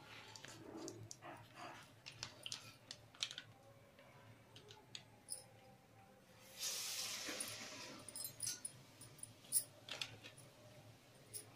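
Hands patting and tapping vada batter on a plastic milk-packet sheet, with light crinkles and clicks. About six and a half seconds in, a vada drops into the hot deep-frying oil and sizzles for about a second and a half before the patting resumes.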